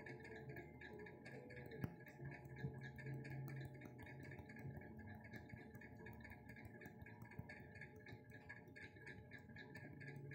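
Near silence: faint steady hum of room tone, with a single soft click about two seconds in.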